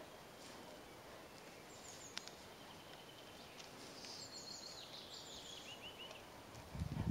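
Small songbirds singing faintly in the forest, with a run of short notes stepping down in pitch about two-thirds of the way through. A low, dull thump just before the end.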